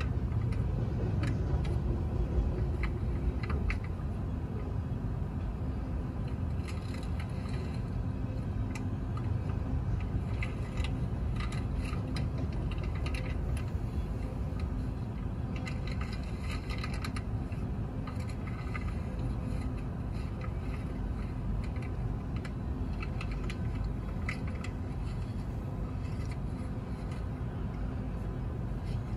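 Loaded coal train's hopper cars rolling past a grade crossing: a steady low rumble with scattered metallic clicks and rattles, muffled from inside a car.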